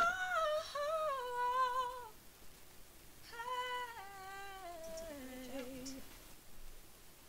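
A woman singing alone with no backing: a high held phrase with vibrato in the first two seconds, then a second phrase that steps down to a low note about six seconds in.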